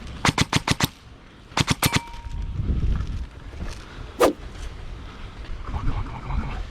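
Airsoft guns firing in short strings of sharp cracks. There is a quick run of about five shots in the first second and a burst of three a moment later. A single louder shot comes a little after four seconds.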